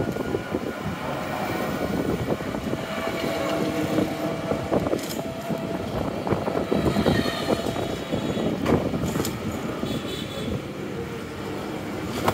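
Street traffic heard from a moving cycle rickshaw: the rickshaw's frame rattling and clicking over the road, with engines of auto-rickshaws ahead.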